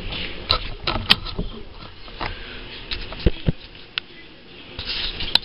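Scattered sharp clicks and knocks at irregular intervals over a faint hiss, busiest in the first second or so and again near the end.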